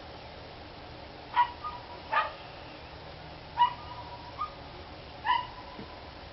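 Dog barking: about five short barks at irregular gaps of roughly a second, some ending in a brief held tone.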